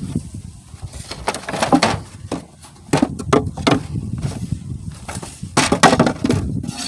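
Irregular knocks, scrapes and cracks of wood as a wooden beehive box is handled and set up, with the loudest clusters about two, three and six seconds in.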